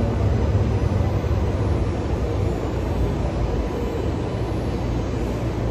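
Calgary CTrain light-rail car running along the track, heard from inside the passenger car: a steady low rumble of wheels and car with a faint whine over it.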